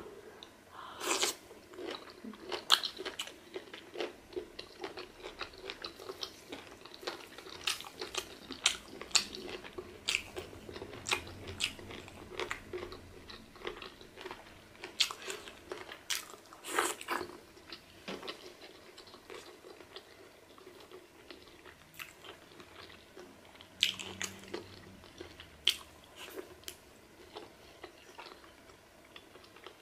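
Close-miked eating of pork pepper soup: irregular chewing and biting on pieces of pork, with many sharp wet mouth clicks and a few louder crunchy bites.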